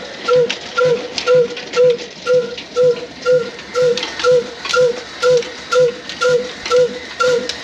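Old black single-cylinder desi diesel engine running at a slow, steady beat, about two exhaust beats a second, each with a short ringing note, with scattered light clicks from the belt-driven machinery.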